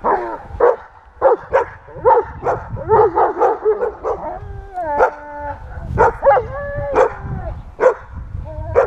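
German Shepherd whining and yelping in a rapid series of short, high-pitched cries, several a second, with a few longer, drawn-out whines about halfway through.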